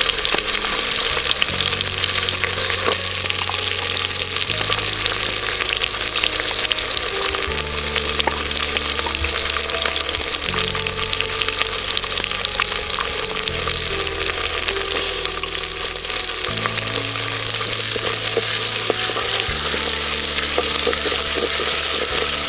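Onions and green chillies frying in hot oil in a clay pot: a steady sizzle with small crackles and the scrape of a wooden spatula stirring. Soft background music with low held notes plays underneath.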